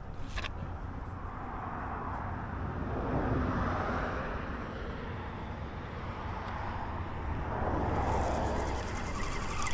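Road traffic passing by: one vehicle swells and fades about three to four seconds in, and another passes near the end, over a low steady rumble.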